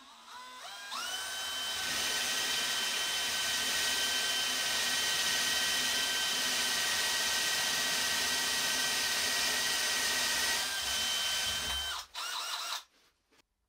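DeWalt DCD999 cordless drill's brushless motor spinning up and boring a 30 mm Forstner bit into wood. Its whine holds one steady pitch under the cutting noise, without bogging down, then it stops suddenly about twelve seconds in, gives one short second burst, and falls silent.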